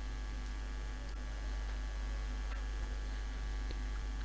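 Steady low electrical mains hum, a constant buzz-like drone with no other sound over it, typical of mains interference picked up by a recording setup.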